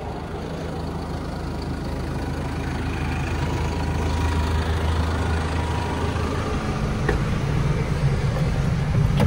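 CAT D4 dozer's diesel engine idling steadily, a low drone that grows a little louder over the first few seconds.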